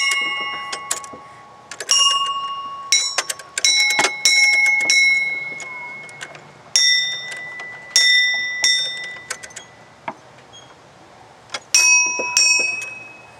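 Playground tube chimes, hanging metal tubes knocked with their ball-ended strikers. A few strikes come together every couple of seconds, and each ringing note fades out slowly.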